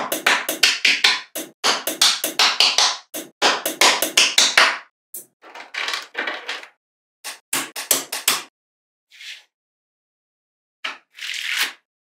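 Small magnetic balls clicking and clattering against each other as they are snapped and pressed into place. The clicks come in quick dense runs for the first five seconds, then in shorter, sparser bursts with pauses between.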